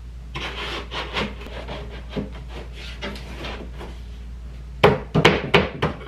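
A half-inch plywood panel scraping and rubbing as it is pushed up into place under built-in plywood cabinets. About five seconds in, several sharp wooden knocks come close together as the panel is seated.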